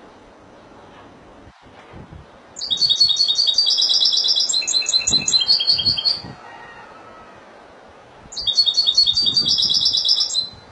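European goldfinch singing two phrases of rapid, high twittering trills: a longer one of about three and a half seconds, then a pause, then a shorter one of about two seconds.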